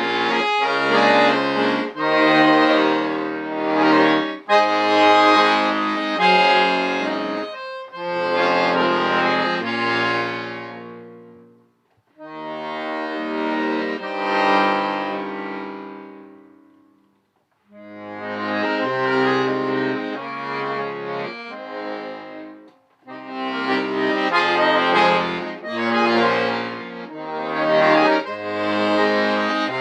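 Solo accordion played in chordal phrases, with two short full stops between phrases about twelve and seventeen seconds in.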